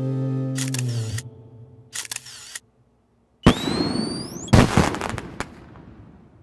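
Cartoon sound effects: a held music chord fades out, with a few sharp clicks. After a moment of silence comes a sudden whoosh with a rising whistle, like a sparkling rocket launching. About a second later there is a loud burst, and a sparkling hiss fades away.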